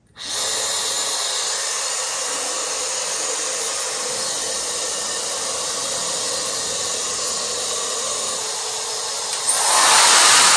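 Handheld electric pet hair dryer switched on, blowing a steady rush of air with a faint motor whine; it steps up louder about nine and a half seconds in.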